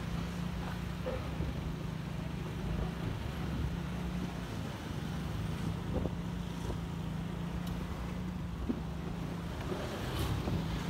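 Motorcycle engine running steadily at low riding speed, a constant low hum, with wind noise on the microphone and motorbike traffic around.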